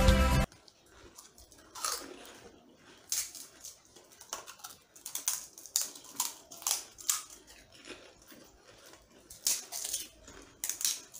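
Crisp pani puri shells cracking as they are poked open and crunched while being eaten: a scatter of short crunches and clicks, with no steady sound between them.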